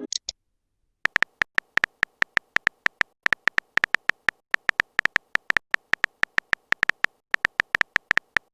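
Keyboard typing sound effect: a rapid run of short, bright clicks in uneven bursts with brief pauses, starting about a second in.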